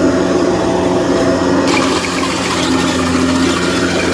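Tracked rice combine harvester running steadily under load as it cuts and threshes rice: a steady engine drone with machinery clatter. About halfway through, a higher rushing noise gets louder.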